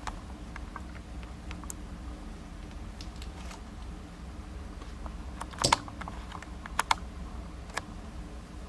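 Small metal lock parts and tweezers clicking and tapping on a work surface while a euro cylinder lock is taken apart, a few scattered light clicks with the loudest a bit past halfway and two close together about a second later.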